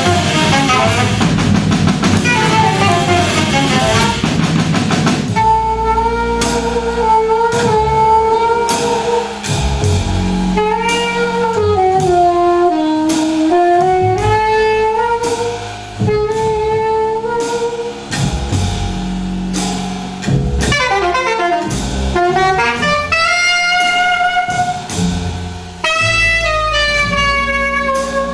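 Live jazz trio of saxophone, double bass and drum kit. After a dense, busy passage in the first few seconds, the saxophone plays long held notes that bend down and back up, then quick runs and a rising line near the end. Bass notes and light cymbal and drum strokes play underneath.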